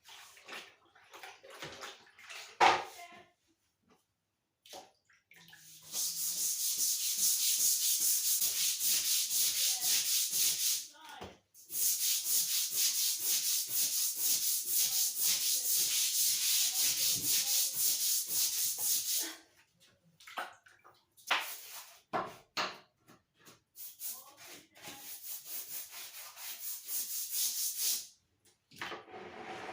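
A brush scrubbing a bathroom floor in long runs of rapid back-and-forth strokes, cleaning off grit and dirt, with a few short pauses.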